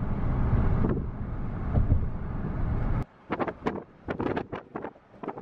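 Wind buffeting the microphone over a low rumble by the water, cutting off suddenly about three seconds in. After that come a few short, faint sounds at a much lower level.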